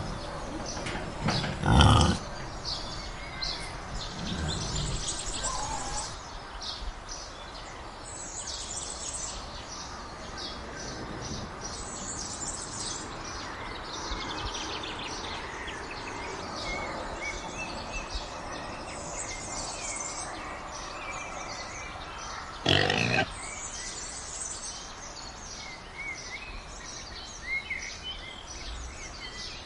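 Wild boar foraging, giving two short, loud grunts, one near the start and one about three quarters of the way through, over continuous birdsong of many short high chirps.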